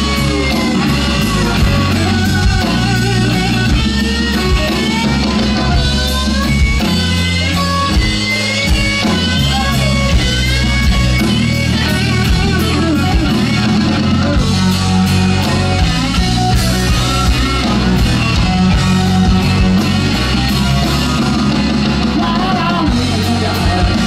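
Live electric blues-rock trio playing: an electric guitar lead with bent, wavering notes over bass guitar and a drum kit.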